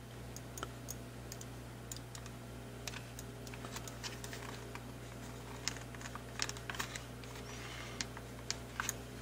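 Fingers handling the plastic underside of a Logitech G602 mouse while pressing its adhesive foot pads back on: small, irregular clicks and taps, over a steady low hum.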